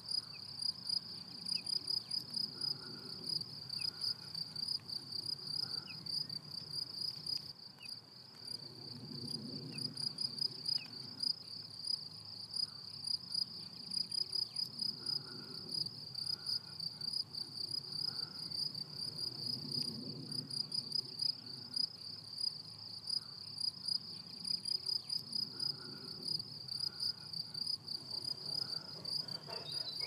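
Crickets stridulating: a continuous high-pitched chirring that pulses a few times a second.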